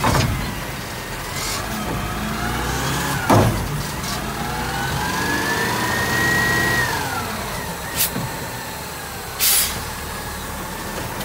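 Garbage truck's natural-gas engine running and revving up to work the hydraulics as the Curotto-Can arm lowers, with a whine that rises, holds and falls away. A heavy metal knock about three seconds in, and a short hiss near the end as the truck pulls off.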